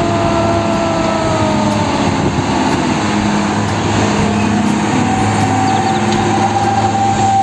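Concrete mixer truck's diesel engine running as it drives past along a busy road, over steady traffic and tyre noise. The engine note sinks about two seconds in and rises again later.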